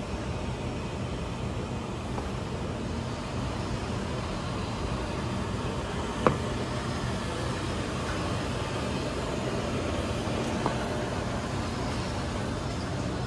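Steady supermarket background: a low hum and hiss with no voices standing out. A sharp click about six seconds in and a fainter one near ten and a half seconds come as plastic drink bottles are lifted from the display.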